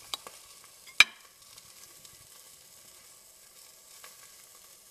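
Cutlery clicking on a plate: a sharp clink of the fork about a second in, with a light tap just before it and another near the end, over a faint steady hiss.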